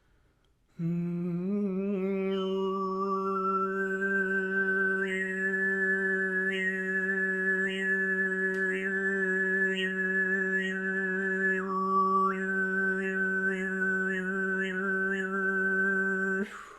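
Tuvan-style throat singing by one male voice: a steady low drone with a whistling overtone melody stepping above it. It starts about a second in, is held on one long tone with quick overtone flicks for about fifteen seconds, and stops just before the end.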